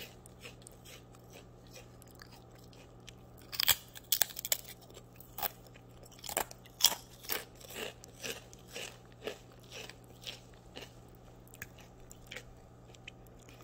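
A crisp fried cassava cracker (opak singkong) being bitten and chewed: a run of irregular crunches that begins a few seconds in and grows sparser toward the end, over a faint steady hum.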